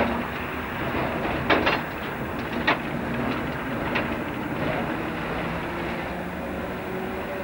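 Munich M-type tram running along street track, heard from inside the car: a steady rumble with a few sharp clacks of the wheels over the rails between about one and a half and four seconds in.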